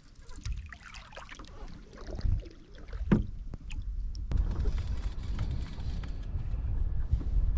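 Canoe on the water: paddle dripping and light splashing with a few hollow knocks against the hull, then a steadier low rush of water from about four seconds in.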